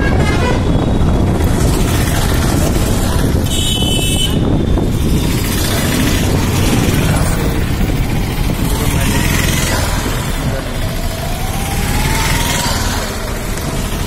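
Steady rumble of a vehicle travelling along a road, filmed from on board, with the noise of passing traffic. A short, high horn toot sounds about four seconds in.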